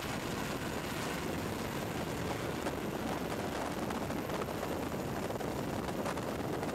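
Steady aircraft noise: an even rushing rumble with no distinct events, most likely from the aircraft carrying the camera.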